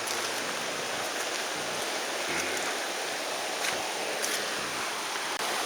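River water rushing steadily through a shallow rocky chute.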